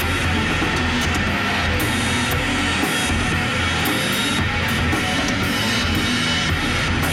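Drum kit and electric guitar playing a heavy rock jam, with drums and cymbals hitting continuously.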